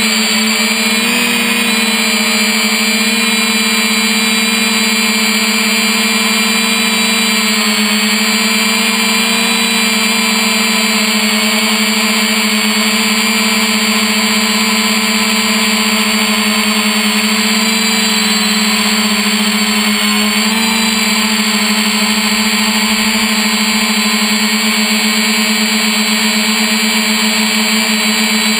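3DR Iris+ quadcopter's four electric motors and propellers running in flight, heard from the camera on the drone: a loud, steady buzzing hum over a rush of air. The pitch shifts slightly about a second in and again around twenty seconds in.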